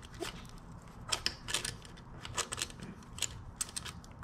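Irregular small metallic clicks and scrapes of a feeler gauge being slid in and out between the camshaft lobe and exhaust valve bucket of a 2006 Yamaha YZ450F, checking valve clearance.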